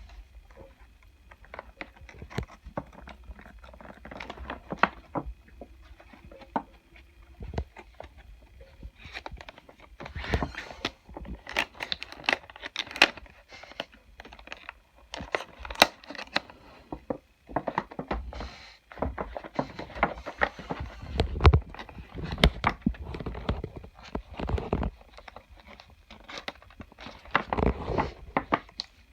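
Hands handling and opening a toy's plastic and cardboard packaging: irregular crinkling, tearing and small clicks and knocks.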